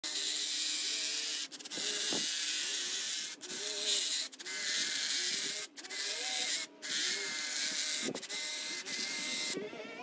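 Cordless pole hedge trimmer running, its reciprocating blades buzzing steadily as they cut through a dense hedge. The buzz cuts out briefly about six times.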